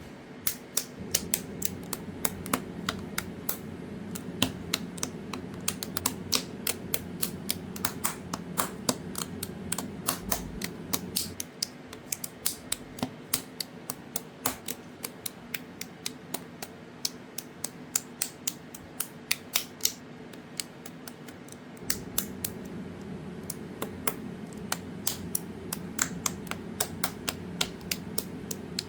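Plastic Lego bricks clicking and snapping together in sharp, irregular taps, about one or two a second, over a steady low hum that drops away for about ten seconds in the middle.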